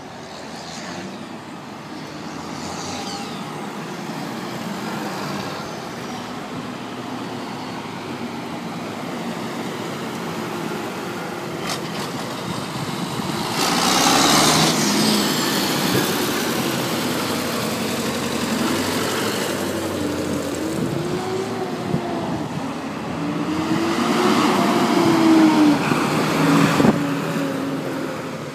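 Tractors' diesel engines driving past one after another, loudest as each passes close, about halfway through and again near the end, with the engine pitch rising and falling in the later pass.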